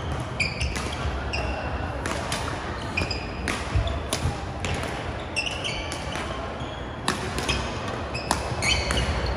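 Badminton play in a sports hall: irregular sharp racket-on-shuttlecock hits and short high shoe squeaks on the court floor, over a low murmur of voices.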